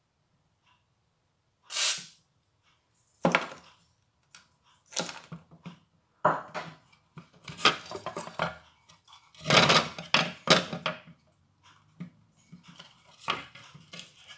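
Hands handling the plastic and metal parts of a stick vacuum's motor and housing on a worktop. A brief scrape comes about two seconds in, followed by irregular knocks, clatters and rubbing.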